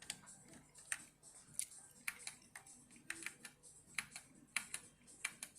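Keys being pressed on a Hator Skyfall HEX mechanical keyboard with Gateron Clear linear switches: a string of separate, irregular clicks, a few a second.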